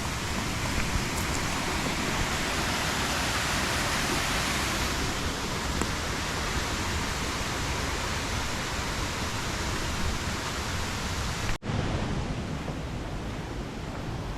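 River water rushing over stones: a steady, even roar of flowing water. It cuts out for an instant about three-quarters through and comes back slightly duller.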